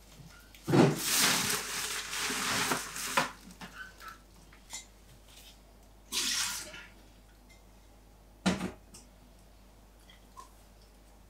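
Old cut flowers dumped into a kitchen pedal bin: a thump, then a couple of seconds of rushing rustle as the stems and leaves go into the bin bag. A sharp knock follows, then a shorter rustle about six seconds in and another thump past eight seconds.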